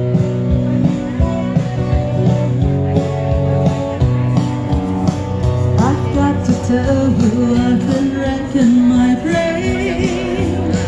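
Live amplified music from a small stage: guitar and backing music playing a country song's accompaniment through PA speakers between sung lines, with a singing voice coming in over it about halfway through.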